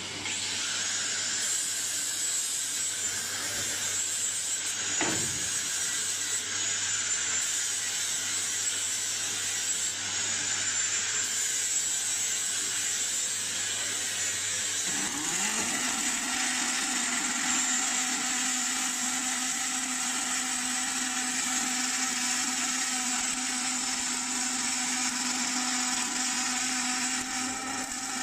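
Automatic circumferential seam welding machine for gas cylinders running: a steady mechanical whir and hiss. About halfway through, a motor spins up and settles into a steady hum.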